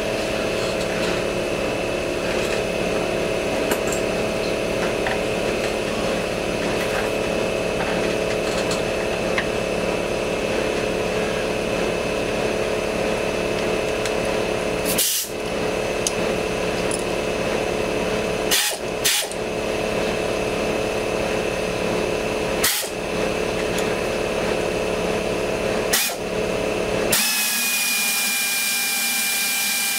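Workshop air compressor running steadily to refill its tank. Near the end an air ratchet with an Allen-bit socket takes over, spinning with a hissing high whine as it undoes the chuck's bolts.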